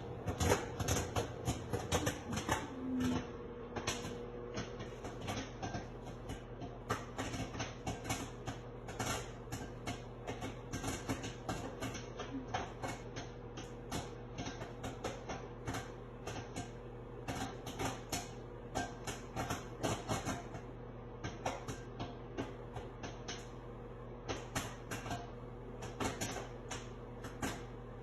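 Microwave popcorn popping inside a running microwave oven: many sharp, irregular pops over the oven's steady hum.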